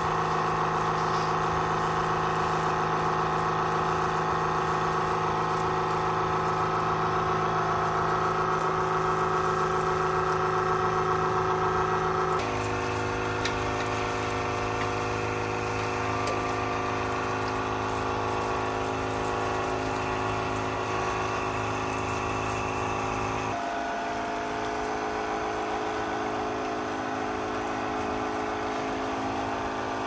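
Pressure washer spraying a jet of water against a truck's chassis: a steady hiss over a continuous machine drone. The drone's pitch shifts abruptly twice, about twelve and twenty-three seconds in.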